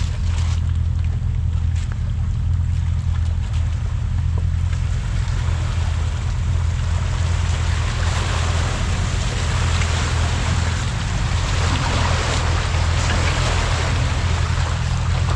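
Off-road vehicle engine running steadily while driving on a trail, with a rush of wind and tyre noise building up in the second half.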